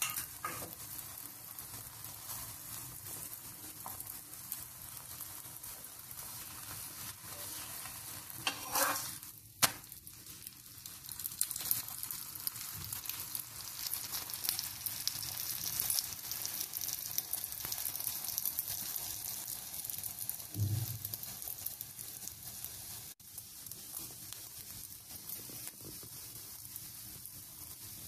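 Parotta frying in oil on a hot dosa griddle (tawa): a steady sizzle as the flipped, oiled side browns. A brief louder noise ending in a sharp click comes about nine seconds in.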